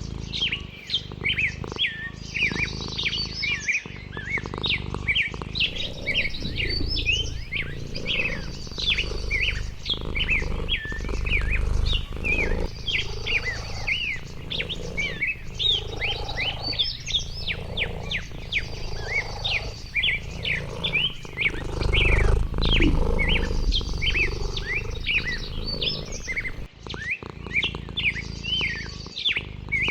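Several songbirds chirping and calling over one another in quick, overlapping notes, with a short high trill that repeats every few seconds. A low rumble sits underneath and swells twice.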